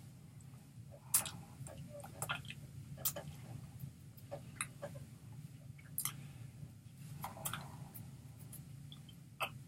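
Scattered soft clicks and taps from a person signing in sign language: hands striking and brushing each other and the body, with small mouth noises, at irregular moments over a steady low hum.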